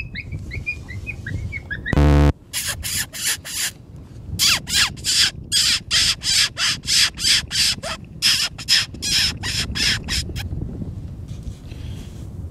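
Predator call sounding a string of harsh, raspy, crow-like squawks, about three a second with two short breaks, after a brief loud blast about two seconds in; the squawks stop near the end.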